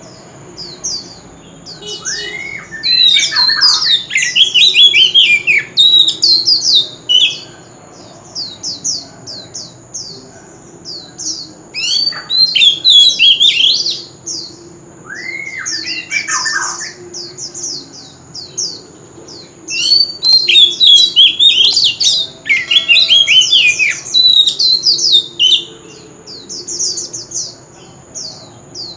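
Oriental magpie-robin singing: phrases of rapid, varied sweeping whistles and harsher notes, broken by short pauses, over a thin steady high tone.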